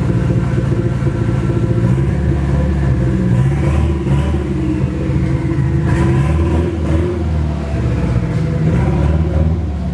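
Nissan SR20DET turbo four-cylinder running loud through an open downpipe with no exhaust after the turbo. Engine speed swells slightly about three to four seconds in, then settles back.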